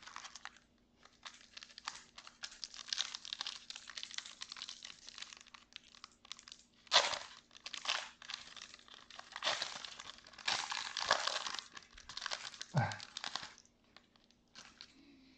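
Pokémon Trick or Trade booster pack wrapper being crinkled and torn open by hand, in irregular crackly bursts, with two louder rips about seven seconds in and near the end.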